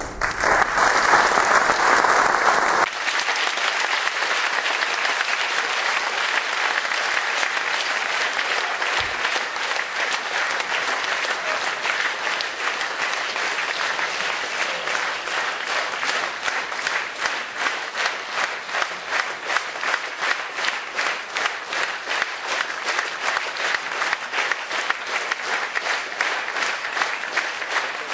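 Audience applauding, loudest in a burst over the first few seconds, then steady; in the second half the clapping falls into an even rhythm, the audience clapping in unison.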